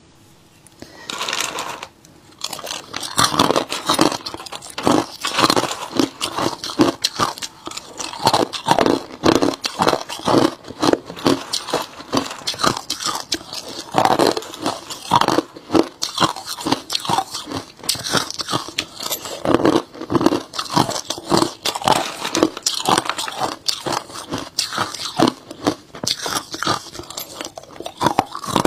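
Hard chunks of ice being bitten and chewed close to the microphone: a fast, irregular run of crisp crunches, one after another.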